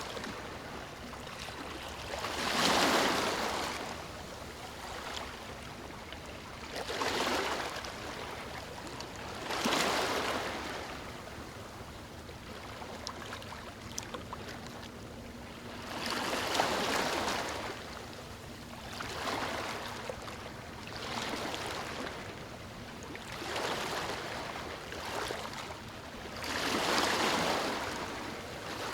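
Ocean waves washing onto a shore, each wave swelling and fading every few seconds.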